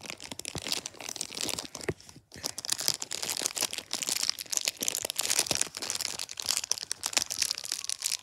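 Clear plastic packaging crinkling and crackling as hands work and pull at it to free a small figure, with a short pause a little over two seconds in.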